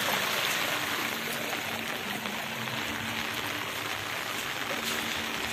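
Muddy rainwater rushing down a roadside ditch: a steady running-water noise.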